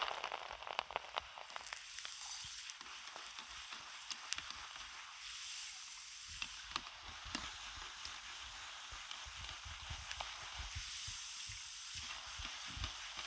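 Soaked chana dal (split Bengal gram) deep-frying in hot oil in an iron karai, a steady sizzle with scattered crackling pops as the moisture on the lentils boils off. A few soft low knocks come in the last few seconds.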